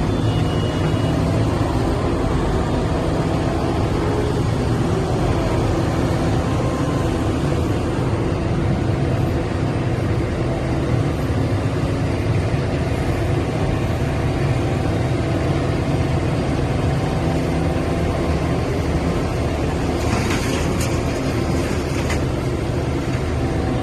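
Liebherr R 974 hydraulic excavator's diesel engine running steadily with a constant low hum, and a brief hiss near the end.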